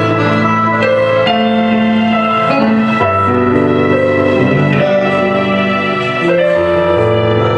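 Instrumental music on a piano or keyboard: slow, held chords over low bass notes that change every second or two.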